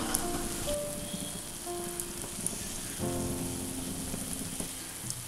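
Onion fritters (ulli vada) frying in hot sunflower oil in a pan: a steady sizzle and crackle of batter cooking in the oil.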